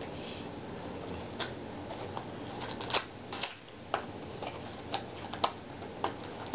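Dragon Ball Super trading cards and their packs being handled, with irregular light clicks and snaps, a few of them sharper, as cards are set down and sorted.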